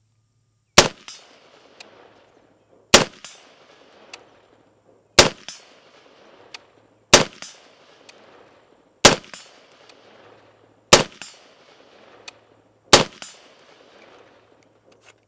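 Seven single rifle shots from a short-barrelled .308 AR-10-type rifle, about two seconds apart, each a sharp crack with a short fading echo. The rifle is fitted with the Walker Defense Nero 7.62 3D-printed muzzle brake.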